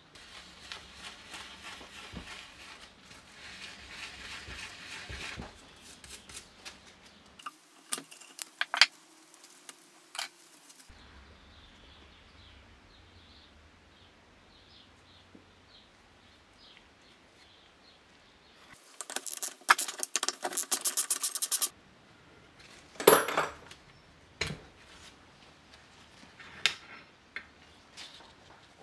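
Metal tools and small engine parts of a tiller being handled on a workbench: a stretch of scraping, then clinks and knocks. In the middle comes a fast, even run of clicks, about eight a second, and soon after a single loud metal clank, followed by a few light taps.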